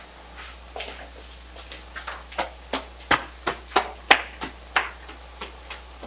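Running footsteps on stone paving, about three steps a second, loudest about three to four seconds in and then fading away.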